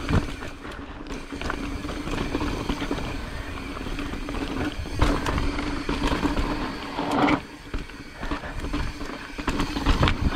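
Pivot Firebird mountain bike ridden over rocky trail: tyres rumbling over rock and the bike rattling, with wind on the microphone. A steady hum runs throughout, and a few sharp knocks come about five, seven and ten seconds in.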